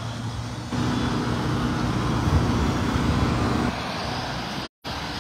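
A steady engine drone that comes in about a second in and fades after about three and a half seconds, over rough wind noise on the microphone. The sound cuts out completely for a split second near the end.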